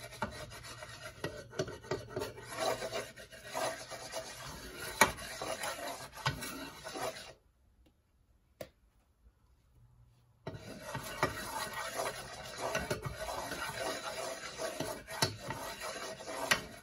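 Scraping and rubbing in a frying pan as a thin film of oil is spread over it, with a few sharp knocks of a utensil on the pan. The sound drops out to near silence for about three seconds midway, then resumes.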